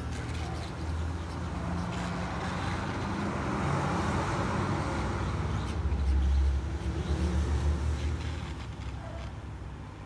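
Hot air rework gun blowing a steady rushing hiss with a low rumble, heating the solder under a laptop power button to fit it to its board. It swells in the middle as the nozzle is brought close and fades near the end as it is pulled away.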